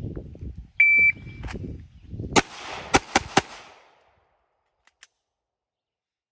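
Shot-timer beep, then about a second and a half later four shots from a 4-inch Walther PDP pistol. The first shot stands alone; after a short pause come three fast ones about a fifth of a second apart. The string from beep to last shot takes about 2.6 s, just over a 2.5-second par time.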